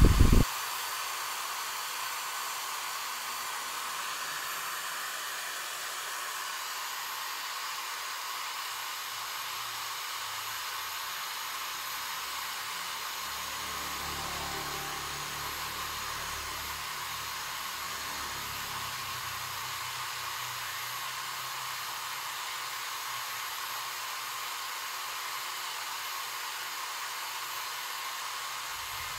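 Handheld electric drill running steadily, spinning fine sandpaper inside a Honda Wave 110 carburettor's throttle bore to scour off the gummy deposits that make the throttle slide stick. A faint low rumble joins in around the middle.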